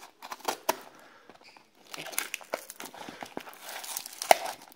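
Paper, cardboard and plastic packaging crinkling and crackling as a parcel is cut open with a small knife and pulled apart by hand, with a sharp crack about four seconds in.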